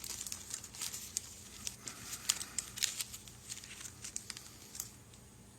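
Small plastic model parts and their packaging being handled: irregular light clicks and crinkles that die away near the end.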